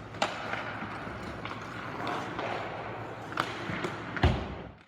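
Ice hockey practice on a rink: a steady scrape and hiss of skates on ice, broken by sharp clacks of sticks and pucks. The loudest is a heavy thud a little over four seconds in, after which the sound cuts off.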